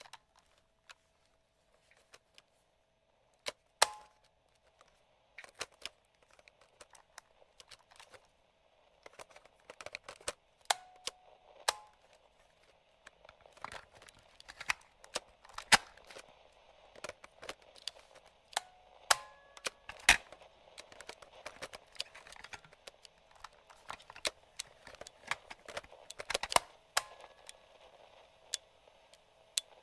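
Vintage transistor radio's static: a narrow-band hiss that grows stronger about ten seconds in, broken by sharp, irregular clicks and pops, with a few short whistling tones here and there.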